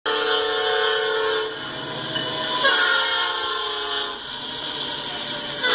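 Freight locomotive's multi-chime air horn sounding for a grade crossing: a long chord blast, a second long blast about a second later, and a third starting near the end, as a CN SD70ACe diesel passes.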